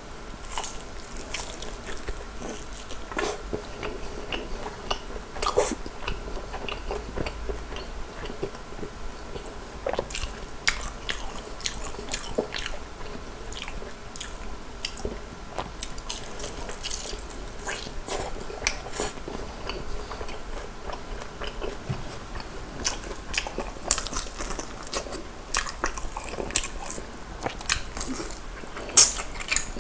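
Chewing and biting into soy-garlic-glazed fried chicken: many short crisp crackles and clicks of the crust between the teeth, with a run of louder bites near the end.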